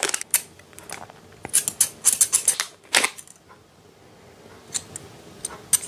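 A pair of small haircutting scissors being taken out of a plastic sleeve and handled: scattered crinkles and light clicks, with a quick run of them between about one and a half and three seconds in, then a quieter stretch.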